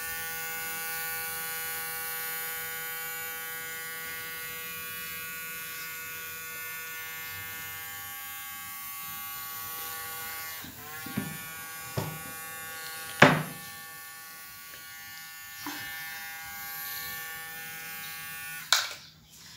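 Small DC motor on a homemade wooden-stick robot, whirring with a steady buzzing whine. Its pitch dips about eleven seconds in, a few knocks follow with one loud one about thirteen seconds in, and it cuts off with a click near the end.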